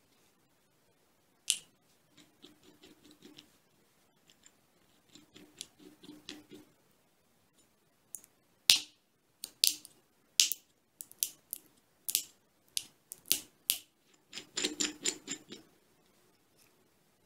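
A hand-turned aluminium screw nutcracker closing on a hazelnut. The threaded spindle and nut first give soft rattling clicks, then a series of loud, sharp cracks as the shell gives way, ending in a quick burst of crackling near the end as the shell breaks up.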